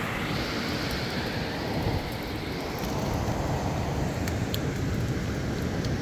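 Strong gusting wind rushing through tall pine trees and buffeting the microphone with a heavy low rumble, with a few faint ticks about four and a half seconds in.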